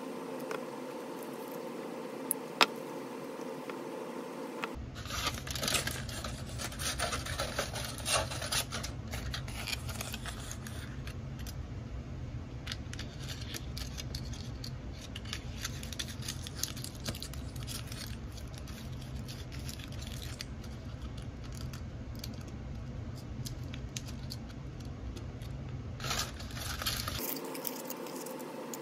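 Aluminium foil being crinkled, torn and folded by hand, a run of crackles and small clicks, with light taps and scrapes of small metal tools on a tabletop. A sharp click comes a couple of seconds in.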